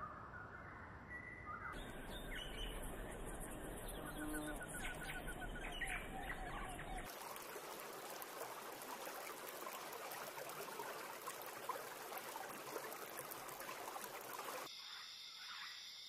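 Wild birds calling and chirping outdoors in a run of separate recordings. The background changes abruptly a few times, with a dense, hissy outdoor chorus through the middle stretch.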